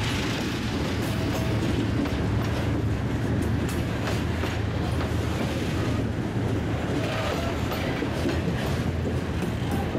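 Freight train hopper cars rolling past at close range: a steady rumble of steel wheels on rail, with scattered clicks and clacks from the wheels and couplings.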